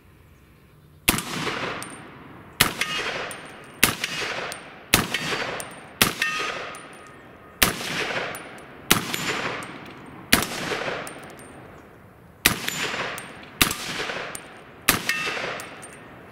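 Eleven semi-automatic shots from a 300 AAC Blackout AR-15 pistol with an 8.5-inch barrel, fired at a steady pace of roughly one every second and a bit, with a slightly longer pause before the last three. Each shot trails off in a long echo, and several are followed by a short, high ring.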